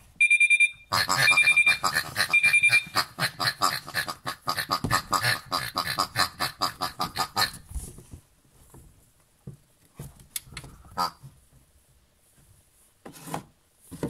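Toy washing machine's electronic sound effects: a quick run of high beeps, then a loud fast-pulsing beeping pattern that turns into rapid rhythmic pulses for several seconds and stops about halfway through. After that come scattered light clicks and knocks as the machine's door and front are handled.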